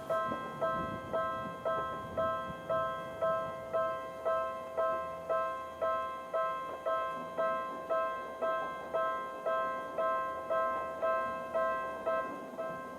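Japanese level-crossing electronic warning bell of the Tokyu type, starting up and striking steadily at about two strikes a second. Each strike rings out and fades, with two tones sounding together, the lower of them pitched low.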